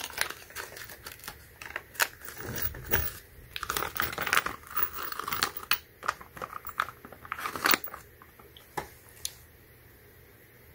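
Small thin plastic zip-lock bag being handled and pulled open, crinkling, loudest about four to five seconds in. In the last few seconds it gives way to a few light clicks as small metal screws are handled in a palm.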